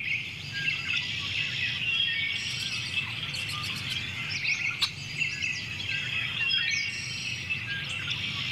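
A dense chorus of many birds chirping and trilling over one another, with a faint steady low hum underneath.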